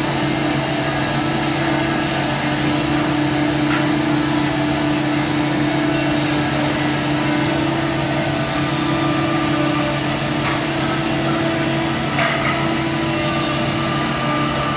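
CNC wood-drilling machine running, a steady motor hum with an even hiss that holds at one level, with a few faint brief ticks.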